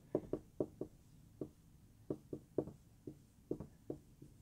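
Marker pen writing on a whiteboard: a string of short, irregular taps and strokes, about three a second, as the letters are written.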